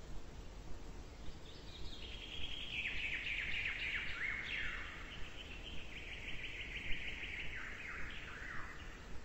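Birds singing: a long run of high chirps and fast trills, many notes dropping in pitch, beginning about a second in.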